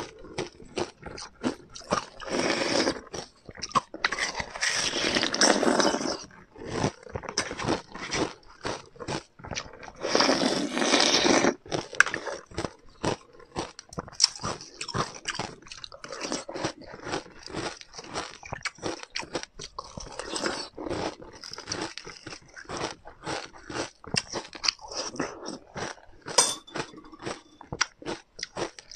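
A person biting and crunching ice in their mouth, a dense run of crackling crunches. The heaviest crunching comes in two long spells, a few seconds in and again about ten seconds in, with lighter chewing crunches between and after.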